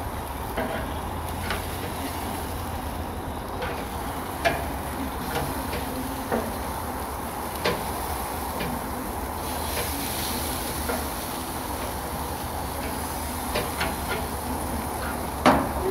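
Chicken drumsticks sizzling on a gas grill while being turned with metal tongs, with irregular sharp clicks of the tongs against the grill grates. The loudest clack comes near the end.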